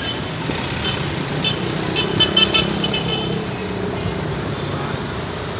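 Street traffic: car and minibus engines running as they pass at low speed, with a quick run of short high-pitched horn toots about two seconds in.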